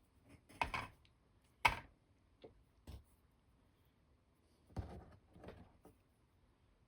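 Wooden spring clothespins, used as small clamps, handled and clipped on: a handful of short clicks and knocks spread over several seconds, the sharpest about a third of the way in.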